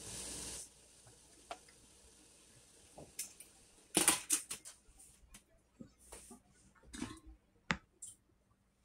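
A short hiss, then the stainless steel lid of a steamer pot being handled: scattered sharp metal clinks and knocks, the loudest cluster about four seconds in.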